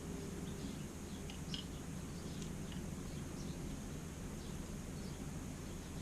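Steady low background hum with a few faint light ticks as a chisel is set and adjusted in a honing guide.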